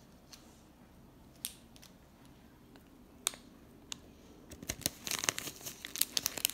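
A small clear plastic packet crinkling as it is handled and shaken out over the slime. There are a few separate crackles at first, then dense crinkling in the last two seconds.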